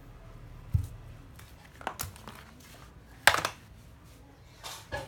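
Handling noise of plastic cordless drills: several sharp knocks and rattles as the tools are set down and picked up, the loudest a little after three seconds in. No drill motor runs.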